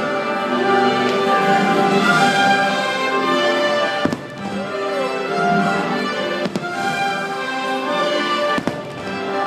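Orchestral show music playing loudly, with firework bursts cracking over it, the sharpest about four seconds in, again at six and a half, and near the end.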